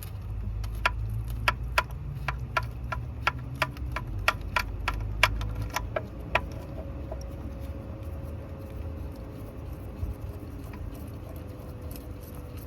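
Hand ratchet on an extension clicking as it turns a bolt or spark plug in the engine bay: an irregular run of sharp clicks, about three a second, that stops about six seconds in, followed by a faint steady hum.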